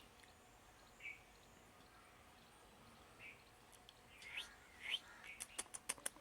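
Faint bird calls: a few short, spaced chirps, then two rising calls. Near the end comes a quick run of sharp clicking notes.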